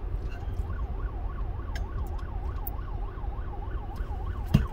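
Emergency vehicle siren warbling rapidly up and down, about four sweeps a second, heard through the closed car over the low rumble of the idling car, with a knock near the end.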